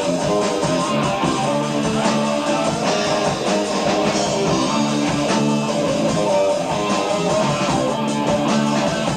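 A progressive rock band playing live, with electric guitar to the fore over keyboards, bass and drums, heard on an amateur tape recording.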